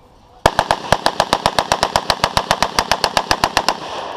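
Rifle firing one long fully automatic burst of about thirty rounds at roughly ten shots a second, starting about half a second in and cutting off after just over three seconds.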